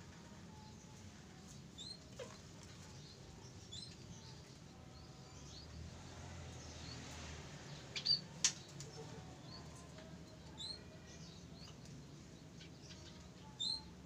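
Munias giving short, thin, high peeps now and then, with two sharp taps about eight seconds in and another near the end.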